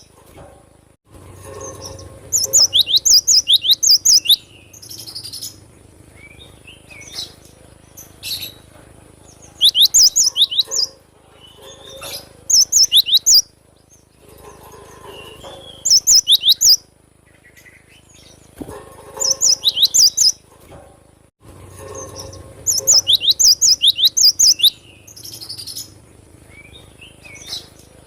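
Cinereous tit singing: repeated bursts of rapid, high, falling notes about every three seconds, with softer, lower calls between them.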